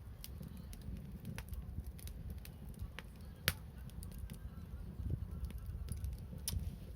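Wood bonfire crackling, with scattered sharp pops, the loudest about three and a half seconds in, over a steady low rumble.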